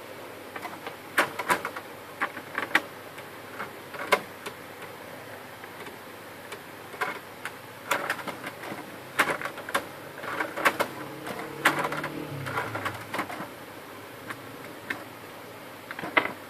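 Irregular light clicks and taps of tweezers and fingers handling small plastic gears and metal parts on a laser printer's gear-side plate, thickest in the middle stretch, over a steady background hiss.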